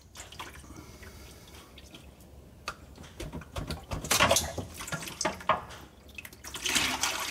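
Transmission fluid dripping and trickling from the edge of a tipped metal transmission pan as the pan is lowered off the transmission. There is a cluster of knocks from the pan being handled about four seconds in, and a louder splashing pour near the end.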